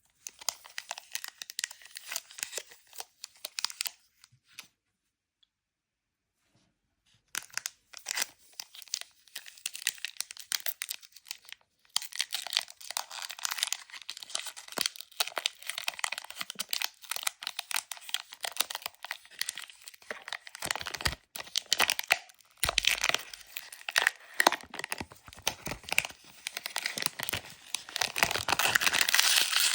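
Pokémon card packaging being torn open and crinkled by hand: dense crackling and tearing in rapid bursts, with a pause of a few seconds early on, growing loudest near the end.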